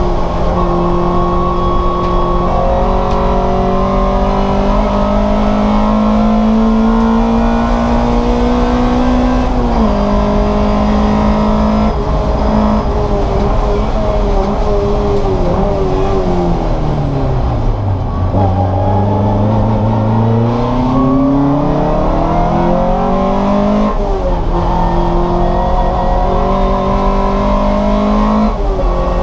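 Race car engine at full racing load, its pitch climbing through each gear and dropping at each upshift. About halfway through it winds down steadily for a few seconds as the car slows, then climbs again through the gears.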